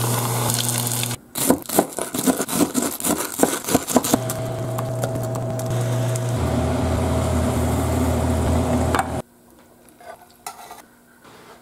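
A panko-breaded pork cutlet deep-frying in hot oil: a steady sizzle, then a run of loud, sharp crackling. Then a steady sizzle of sliced onions cooking in a pan, which cuts off abruptly about nine seconds in, leaving only a few faint small sounds.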